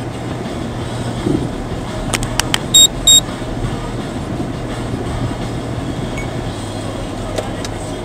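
Car running over a level crossing, heard from inside the cabin as steady engine and road noise. About two seconds in come a few sharp knocks as the wheels cross the rails, then two short, loud, high electronic beeps from the dashcam, typical of its event-recording alert being triggered.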